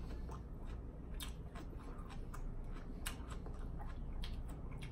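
A person chewing a mouthful of salad close to the microphone: soft wet smacking with a handful of sharp, scattered clicks.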